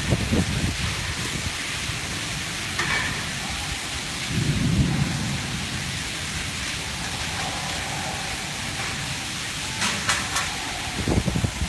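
Rainstorm: steady rain hiss with a low rumble swelling about four and a half seconds in, and a few sharp knocks near the end.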